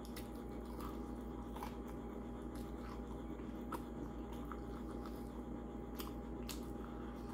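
Faint chewing and small scattered crackling clicks as a crispy breaded chicken wing is pulled apart by hand and eaten, over a steady low hum.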